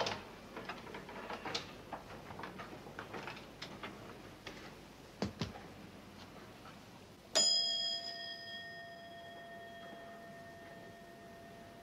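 A brass hotel reception desk bell struck once, about seven seconds in, ringing out with a clear bright tone that fades slowly over several seconds. Before it come footsteps and two knocks.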